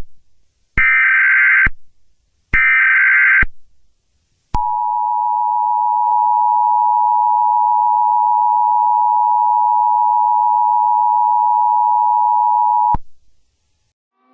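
Emergency Alert System alert tones. Two short bursts of the screechy SAME header data signal, about a second each, are followed by the two-tone EAS attention signal, held steady for about eight seconds before it cuts off.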